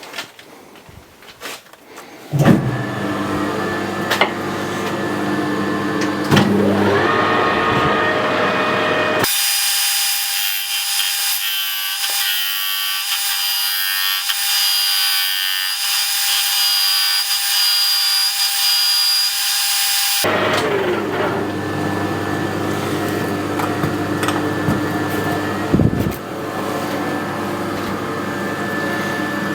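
Metal lathe starting up about two seconds in and running, turning down the edge of a 6 mm steel plate disc held against the chuck jaws by a rotating tailstock centre. For about eleven seconds in the middle the sound turns thin and high, then returns to the full running sound.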